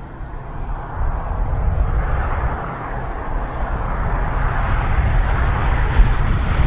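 Double-stack container freight train rolling past: a steady low rumble of wheels on rail, with the noise of the passing cars, getting louder about a second in.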